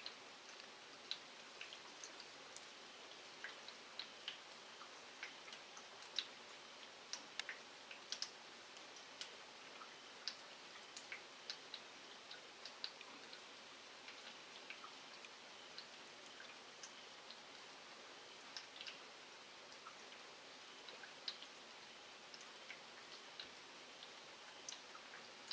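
Light rain: single raindrops ticking irregularly, a few a second, over a faint steady hiss.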